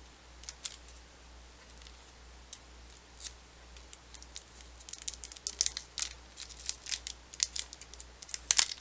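Light clicks and taps from small art supplies being handled, scattered at first and coming quickly one after another over the last few seconds.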